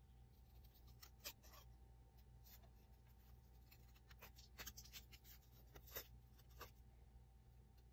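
Small scissors snipping through a black cardstock circle, cutting out a curved hairline shape. The snips are faint, short and irregular.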